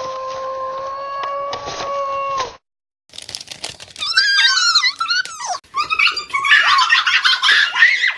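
A long, steady high-pitched squeal held for about two and a half seconds over rustling paper as an envelope is torn open. After a sudden cut, two young women shriek and scream with excitement, their voices sweeping up and down in pitch.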